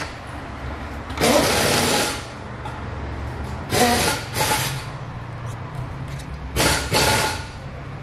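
Rubber fuel hose being worked and pushed onto a new petrol solenoid valve by hand: three short rustling, scraping bursts over a steady low hum.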